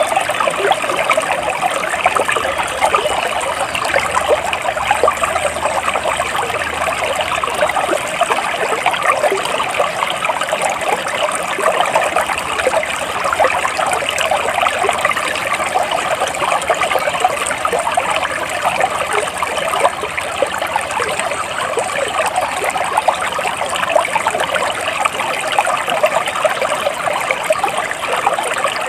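Water flowing and trickling steadily, like a small stream running over stones.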